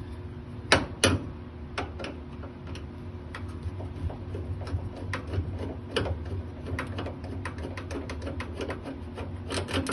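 Clicks and small metallic ticks from a screwdriver backing Phillips screws out of a clothes dryer's door switch, with two sharper clicks about a second in, over a steady low hum.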